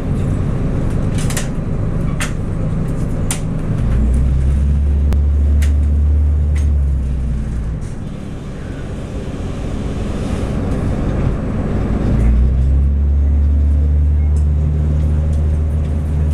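Underfloor diesel engines of a TRA DMU2900/3000 diesel multiple unit heard inside the passenger car as the train pulls out of a station, a low steady drone that swells about four seconds in, eases off near eight seconds and comes back strong about twelve seconds in. A few sharp clicks come in the first six seconds.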